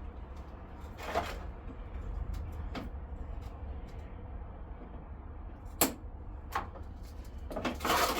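Scattered knocks and clicks of plastic bumper parts and fittings being handled and pried loose, with a sharp knock about six seconds in and a louder scrape near the end, over a steady low hum.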